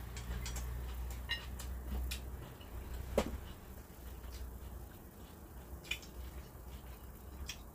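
Quiet mealtime sounds: scattered light clicks and taps of chopsticks and tableware, with one sharper knock about three seconds in, over a low steady hum.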